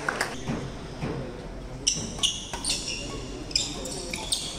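Badminton doubles rally: sharp racket strikes on the shuttlecock and short, high-pitched squeaks of players' shoes on the wooden court floor, the squeaks starting about two seconds in.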